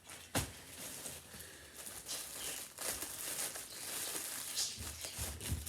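Bag of clothing rustling and crinkling as it is handled and opened, with a sharp tap a fraction of a second in and some soft low thuds near the end.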